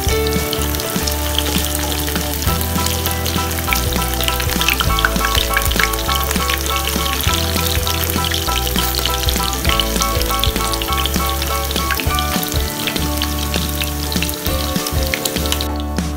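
Radish fritters frying in shallow oil in a pan: a dense, steady sizzle with many small crackles and pops, cutting off near the end. Background music with a stepping bass line runs underneath.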